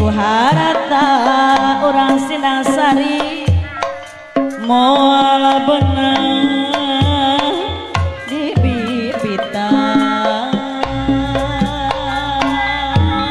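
Sundanese jaipongan music: a woman singing a winding melody with a bowed rebab, over irregular kendang hand-drum strokes.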